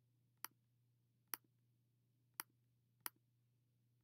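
Computer mouse button clicking four times, each click a little under a second apart, placing the points of a curve line. A faint steady hum sits underneath.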